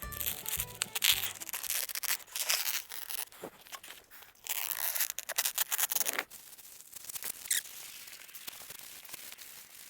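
Synthetic house wrap sheet being unrolled and handled, rustling and crackling in irregular bursts.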